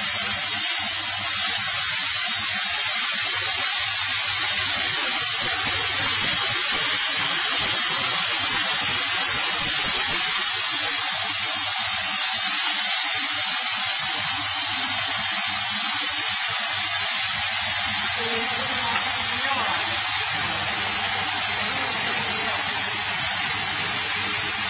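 A steady, even hiss that holds level, with no clear rhythm, clatter or tone in it.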